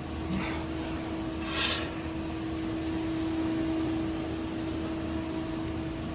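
Commercial refrigerator's condensing unit running, its condenser fan and compressor giving a steady hum. There is a brief rustle of handling about one and a half seconds in.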